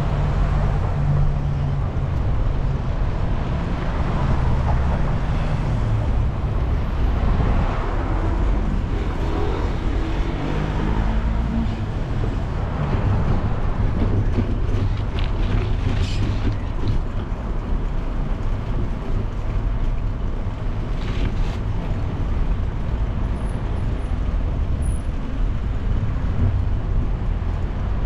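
Steady rumble of a bicycle ride on pavement, heard through a GoPro action camera: road and wind noise with street traffic going by. Two sharp clicks come just past the middle and about three-quarters through.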